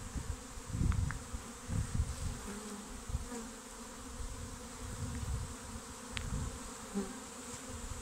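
Buzzing of a honeybee swarm hanging in a cluster on a tree branch, with single bees droning past close by now and then. Irregular low rumbles come through, strongest in the first couple of seconds.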